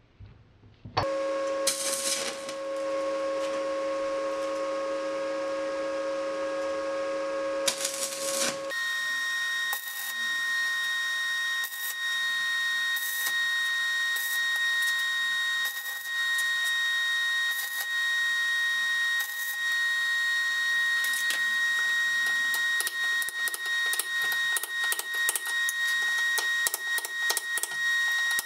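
A steady humming tone, then a higher steady whine with scattered metallic clicks that quicken into a rapid run of taps near the end, as slag is chipped off a fresh stick weld on a steel nut.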